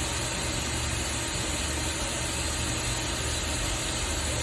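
Tsugami B038T Swiss-type CNC lathe running steadily, a constant low hum under an even hiss.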